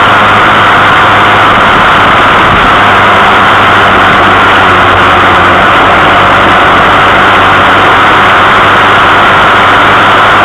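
A small motor vehicle cruising at a steady speed: a steady engine hum under a loud, even rush of road and air noise.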